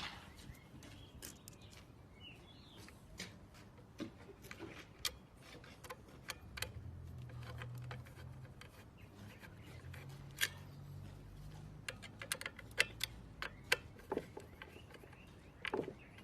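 Small sharp clicks and taps of metal lock parts and screws being handled and fitted, scattered irregularly, with a low hum in the middle for a few seconds.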